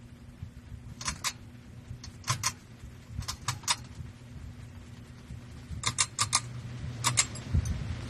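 Hunter Studio Series ceiling fan's motor humming steadily as the fan speeds up, with a rushing sound that grows toward the end. Sharp light clicks come in pairs and threes several times.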